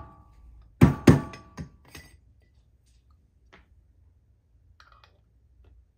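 Two sharp metallic clanks about a second in, each with a short ring, then a few lighter knocks and faint clicks: a dosing cup and tamper being handled on a stainless espresso portafilter.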